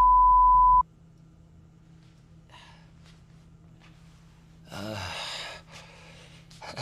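A steady electronic beep tone at one pitch, cutting off abruptly about a second in. The rest is quiet apart from a short breath-like sigh about five seconds in.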